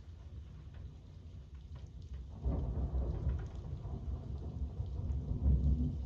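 Steady rain with small drop ticks; about two and a half seconds in a low thunder rumble breaks in suddenly and rolls on, swelling again near the end.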